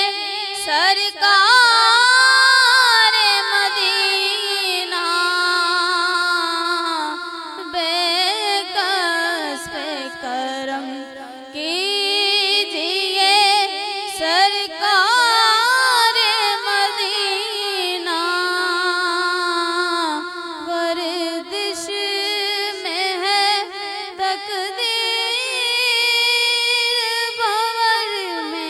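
A woman's voice singing a devotional Urdu naat in long, held, ornamented notes with a wavering vibrato and no clearly sung words.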